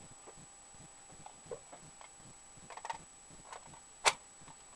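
Handling noise as a shooter sits down at a bench and takes up an SVT-40 rifle on its sandbag rest: faint scattered knocks and rustles, a quick cluster of small clicks near the middle, and one sharp click about four seconds in.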